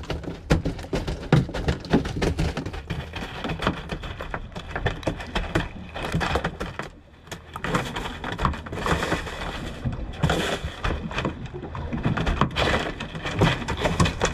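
Freshly caught mahi-mahi being handled in a boat's fish box: irregular knocks, thumps and slaps throughout, with a short lull about halfway.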